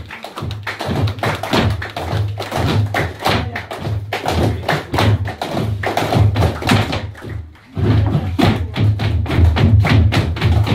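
Flamenco palmas: several people clapping their hands in a fast, steady rhythm over flamenco guitar. The clapping breaks off briefly about seven seconds in, then picks up again louder.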